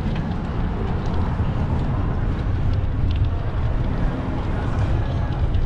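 Steady low rumble of wind buffeting the microphone on a moving bicycle, mixed with city street and traffic noise.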